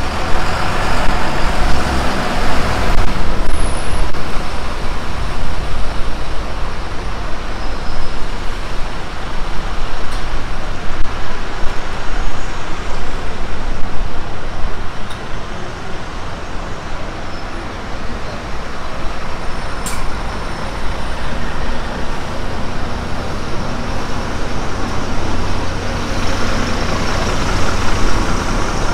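Road traffic with double-decker buses running close by, swelling near the start and again near the end. Wind buffets the microphone throughout as a heavy low rumble.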